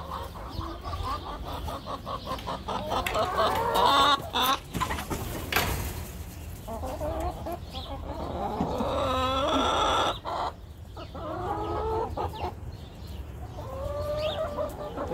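A flock of backyard hens clucking, many short calls overlapping, with one longer drawn-out call near the middle. A short burst of noise comes about five seconds in.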